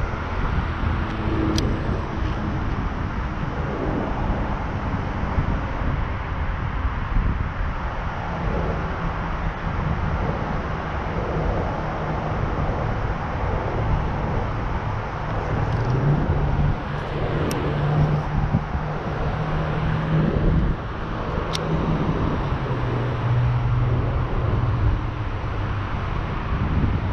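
Outdoor road-traffic hum with wind rumbling on the microphone, a vehicle's low drone swelling past around the middle and again near the end. A few faint sharp clicks.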